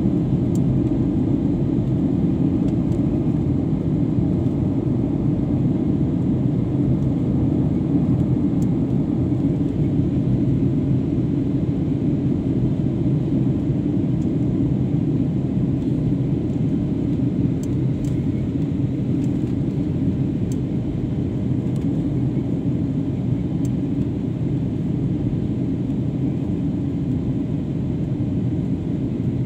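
Steady low rumble of a jet airliner in flight, engines and airflow heard from inside the passenger cabin during the descent to land.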